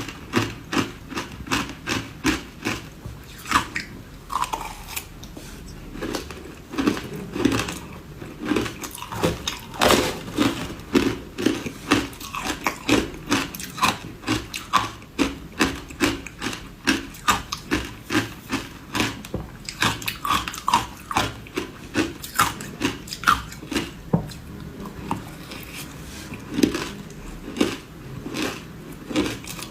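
Ice dusted with matcha powder being bitten and chewed close to the microphone: a steady run of sharp, crisp crunches, about two to three a second.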